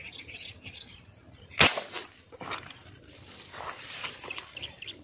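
A single sharp snap about one and a half seconds in, as a tiksay fish-shooting arrow is let fly at a fish in the pond.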